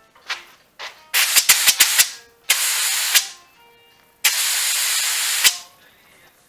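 Compressed-air paint spray gun hissing in bursts as the trigger is pulled: a quick run of short bursts, then two longer sprays of about a second each that cut off sharply.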